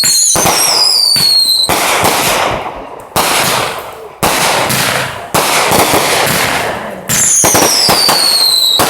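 Consumer fireworks going off: a whistle falling in pitch, then a string of loud bangs about a second apart, each dying away, and another falling whistle near the end.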